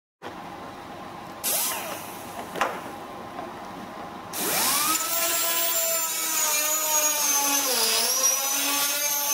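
A hose-fed pneumatic hand tool worked on a car bonnet. There is a brief hiss of air, then about four seconds in the tool spins up with a rising whine over a loud air hiss. Its pitch wavers and sags under load.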